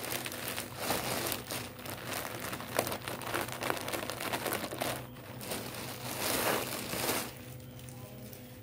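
A thin clear plastic bag crinkling and rustling as folded cotton trousers are pulled out of it through a tear. It is loudest near the end and stops about a second before the end.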